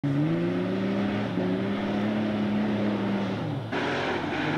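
Motor vehicle engine running at fairly steady revs, its pitch shifting a couple of times and sliding down just before a sudden change to a noisier mix about three and a half seconds in.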